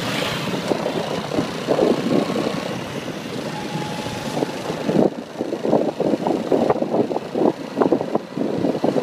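Small motorcycle engine running as the bike rides along.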